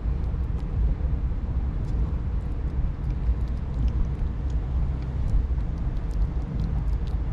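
Steady low rumble of wind buffeting the microphone at the seashore, with faint small ticks of a kitten chewing and lapping wet cat food.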